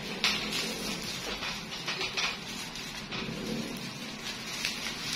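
Clear plastic wrapping crinkling and rustling as it is handled and pulled open, an irregular crackle with sharper crackles now and then.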